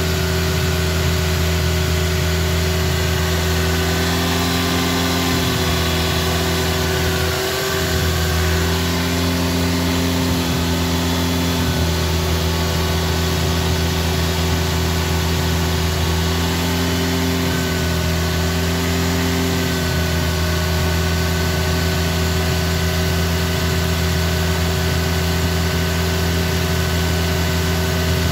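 Hyundai Elantra 1.6 turbo GDI four-cylinder engine running steadily at a raised speed while Sea Foam top engine cleaner is sprayed into its throttle body, the aerosol hissing over it. The engine speed dips briefly about seven seconds in, a normal dip as the cleaner is drawn into the intake to clean carbon from the intake valves.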